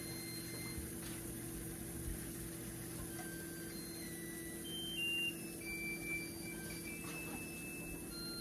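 White wine and lemon juice sauce simmering and reducing in a frying pan, under a steady low hum. A brief louder noise comes about five seconds in.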